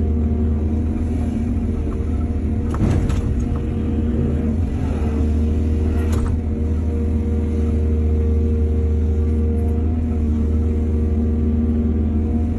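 Excavator's diesel engine running steadily under a low, even drone, with two sharp knocks about three and six seconds in and a short scraping sound between them.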